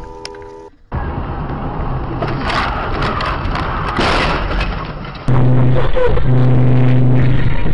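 Dashcam audio of car crashes: a collision with crunching impacts and cracking over road noise, then a car horn blaring loudly in two long blasts.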